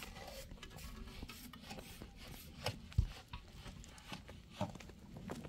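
Hollow concrete blocks being scraped and knocked as they are set in place, with two dull thumps, the louder one about three seconds in.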